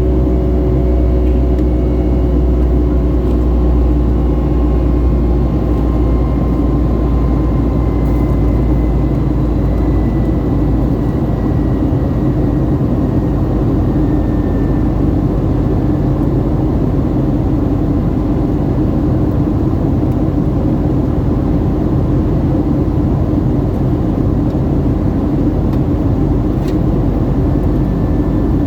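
Jet engines and airflow of a Boeing 757-300 heard inside the cabin, a loud steady roar with deep rumble. A few faint engine tones glide slowly down in pitch during the first half.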